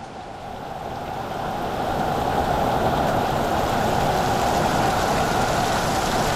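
Thunderstorm rain falling steadily, swelling over the first couple of seconds and then holding at an even level.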